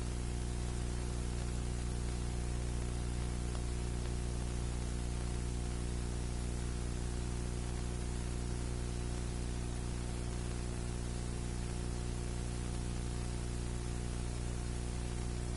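Steady low electrical hum with its overtones under an even hiss: recording noise with no tool sounds heard.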